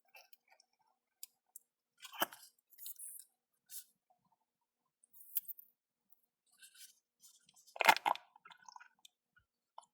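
Green toy slime squelching and crackling as it is squeezed out of its container and handled: scattered short wet clicks and squishes, the loudest about two seconds in and a burst around eight seconds in.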